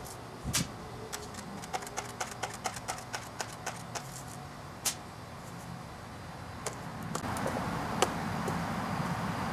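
A run of small, sharp, irregular clicks, several a second, thinning out after about five seconds. From about seven seconds a steady hiss comes up, and a single sharp knock about eight seconds in comes as a black rod is pushed against the burnt, punctured LiPo battery.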